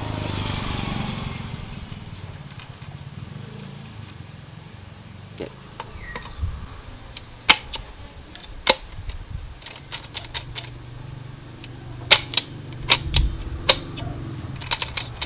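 Sharp metallic clicks and taps of small steel parts being fitted into a motorcycle engine's aluminium crankcase. The clicks come singly, then in quick clusters through the second half. A passing vehicle's rumble fades out in the first two seconds.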